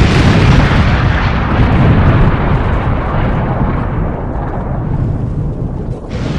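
Explosion sound effect: the long, low rumble of a big blast slowly fading away, with a new explosion bursting in near the end.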